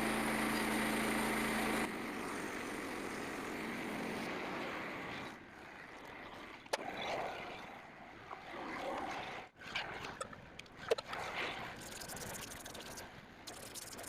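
Portable sawmill's gasoline engine running steadily, which stops abruptly about two seconds in. A quieter stretch follows with a few sharp knocks and clunks.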